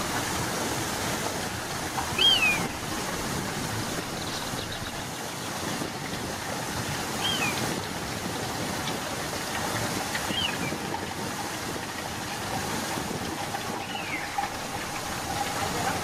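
Steady rush of stream water pouring into a rocky pool. A short high chirp cuts in a few times, every three to five seconds.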